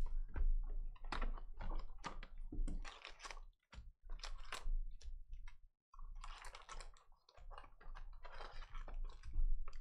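A trading-card hobby box being opened by hand and its foil card packs pulled out: irregular crinkling, rustling and small clicks of cardboard and foil wrappers.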